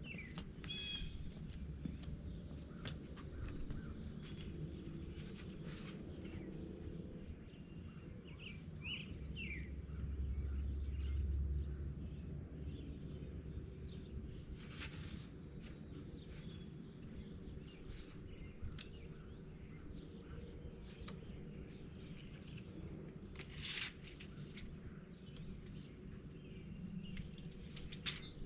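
Outdoor ambience: small birds chirping now and then over a steady low rumble that swells briefly about ten seconds in, with a few scattered light knocks and clatters.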